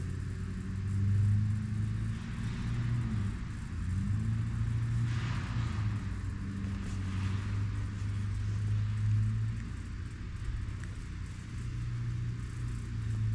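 A steady low motor hum, with brief rustles about five and seven seconds in.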